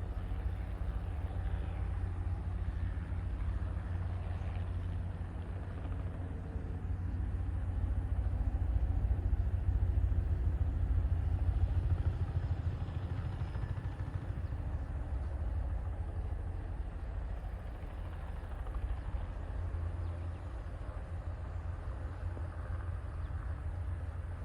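Crop-spraying helicopter's rotor and engine, a steady low-pitched pulsing drone that grows a little louder around the middle and then eases off.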